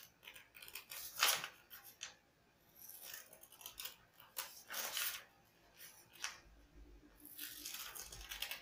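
Scissors cutting through folded sheets of coloured paper: several short snips at irregular intervals, the loudest about a second in.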